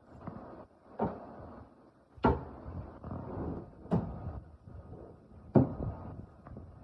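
Wooden sewing machine box being handled: its lid or panels opening and closing, with four sharp wooden knocks spaced a second or more apart and a low sliding rub between them.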